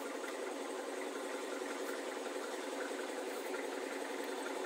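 A steady mechanical drone with no breaks, like an engine idling.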